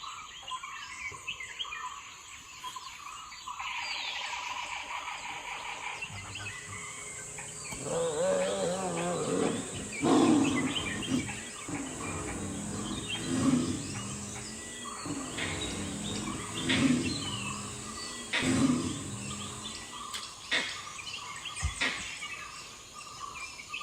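Birds chirping in the first few seconds, then a series of deep animal calls, repeated about every one and a half to two seconds, over a steady high whine.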